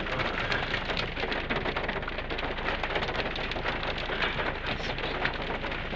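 Steady heavy rain, with a dense patter of individual drop impacts over a continuous hiss.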